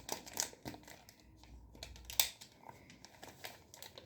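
Plastic bag crinkling and rustling in irregular bursts as plaster powder is tipped from it into a mixing bowl, with one sharp click about two seconds in.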